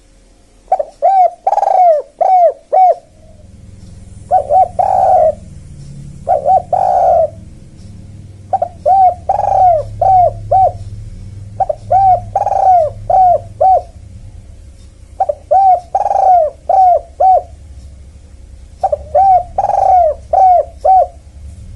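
Spotted dove (tekukur) calling: phrases of four or five short arched coos, repeated every three to four seconds. This is a lure call played to attract spotted doves.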